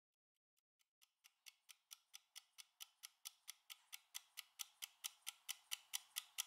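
Countdown timer ticking in its final seconds: rapid, even clock-like ticks, about four or five a second, fading in about half a second in and growing steadily louder.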